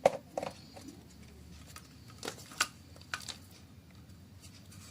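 A few light, scattered clicks and taps from hands working with small objects, over a faint steady low hum.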